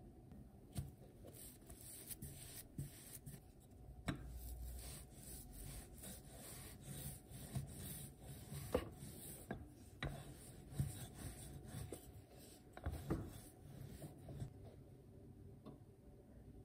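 Wooden rolling pin rolled back and forth over doughnut dough on a countertop: repeated rubbing strokes with scattered light knocks.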